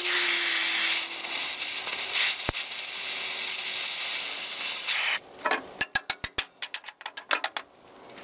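Oxy-acetylene cutting torch hissing steadily as it cuts through a steel bracket, stopping abruptly about five seconds in. A quick run of sharp clicks and knocks follows.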